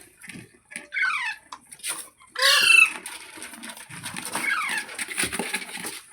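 Rose-ringed parakeet calling: a run of short, harsh squawks, each falling in pitch, the loudest about two and a half seconds in.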